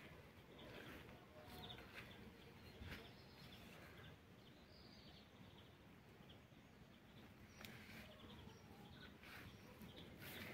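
Near silence: faint outdoor ambience with a few faint, short bird chirps now and then.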